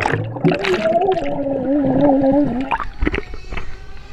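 A person's voice heard underwater: one long, muffled note wavering in pitch, over bubbling, gurgling water. A few sharp splashes and knocks come near the end.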